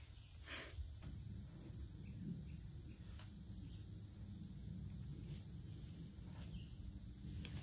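Steady high-pitched insect chorus, a constant drone with no break, over a low rumble, with a few faint light knocks as wooden poles are handled.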